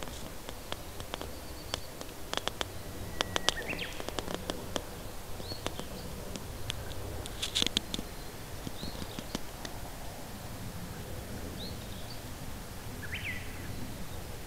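Wild birds giving short chirps every couple of seconds over a faint steady outdoor rumble. Clusters of sharp clicks come about two to four seconds in and again halfway through.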